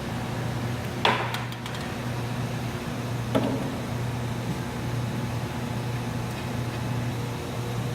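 Steady low machine hum with two sharp knocks, the louder about a second in and the other a couple of seconds later.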